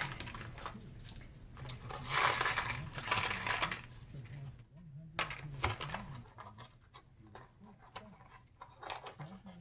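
Gloved hands handling small bolts and washers: a rustle lasting about two seconds, then a few sharp clicks and light ticks of hardware, over a faint low hum.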